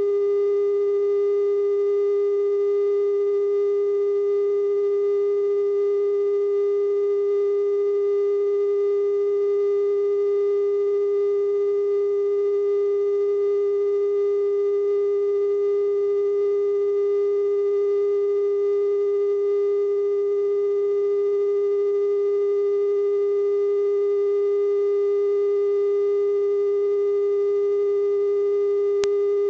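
Steady 420 Hz television test tone, the single unchanging pitch that accompanies the color bars at a station's sign-off, with faint overtones. A faint click comes near the end.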